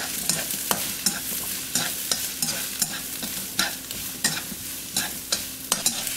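King oyster mushroom and carrot strips sizzling in hot oil in a nonstick wok while being stirred with chopsticks, which give frequent sharp taps and clicks against the pan over a steady hiss.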